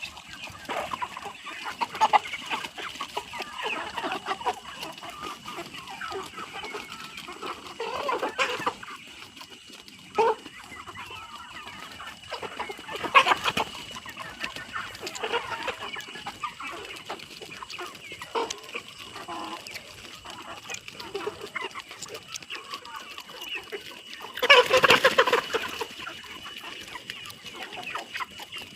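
A flock of chickens clucking continuously, with many overlapping short calls and occasional louder squawks; the loudest burst comes near the end.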